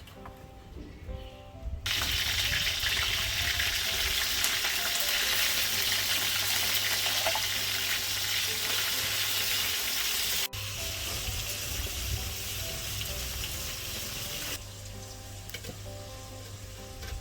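Food frying in hot oil: a steady sizzle that starts suddenly about two seconds in, breaks off for an instant past the middle, resumes, and stops a few seconds before the end. Quiet background music runs underneath.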